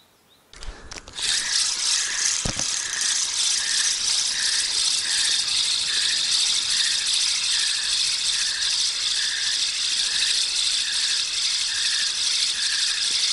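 Spinning reel being cranked steadily to reel in a hooked fish: a continuous whirring rattle of the reel's gears with a regular pulse about twice a second, starting about a second in. A single knock about two and a half seconds in.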